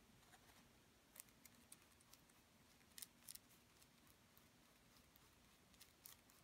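Near silence, with a scattering of faint, short scratchy ticks from a small paintbrush dabbing Mod Podge onto a thin Bible page.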